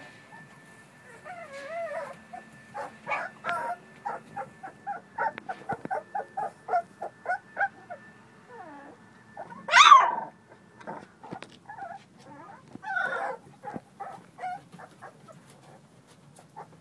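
American Bully puppies whimpering and crying in quick runs of short, high-pitched whines, several a second. About ten seconds in comes one loud cry, the loudest sound, and a few more whines follow.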